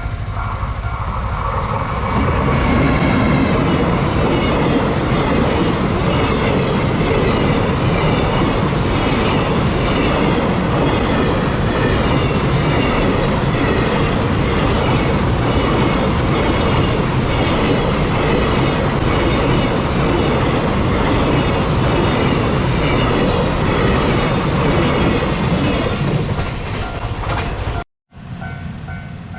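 Long freight train hauled by a JR Freight EF210 electric locomotive passing close by, its wagon wheels clattering over the rail joints in a steady beat. The train comes in about two seconds in and dies away near the end. A level-crossing warning bell rings before it and again right at the end.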